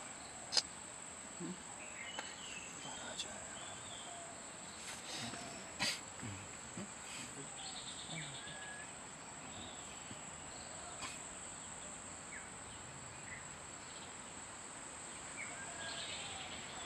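A steady high-pitched drone of crickets, with scattered short chirps and a few sharp clicks; the loudest clicks come just after the start and about six seconds in.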